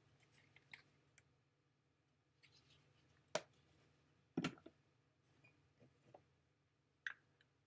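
Near silence: room tone with a few brief, faint clicks.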